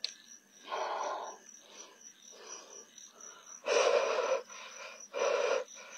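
A person breathing heavily close to the microphone: a few loud, rushing breaths about half a second each, the loudest starting a little before four seconds in, over a faint steady high-pitched trill.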